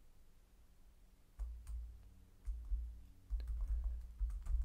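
Scattered keystrokes on a computer keyboard: a handful of separate key clicks spread through a few seconds, several with a dull low thud.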